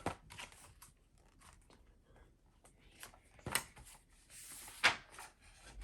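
Paper pages of a picture book being handled and turned: faint clicks and taps, a sharp tap about three and a half seconds in, a brief paper rustle, then another tap.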